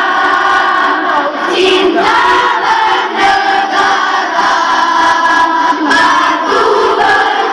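A student choir singing together, many voices holding long notes that change pitch every second or so.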